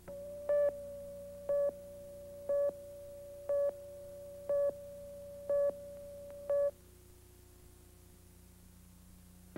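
Test tone from a colour-bar leader on an old videotape. It is a steady pure tone with a louder beep about once a second, seven beeps in all. It cuts off suddenly about seven seconds in, leaving a faint low hum.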